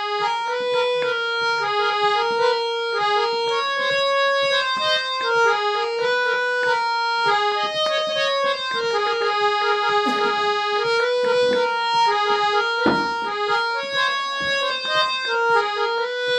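Harmonium played without singing: a reed melody in quick stepping notes over sustained lower notes, an instrumental interlude in a devotional bhajan.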